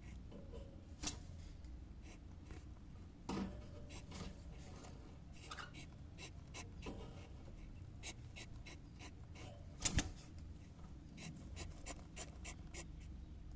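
Cockatiel making many short, sharp clicks and scratchy ticks, with a few louder knocks: one about a second in, one a little after three seconds and a double one near ten seconds.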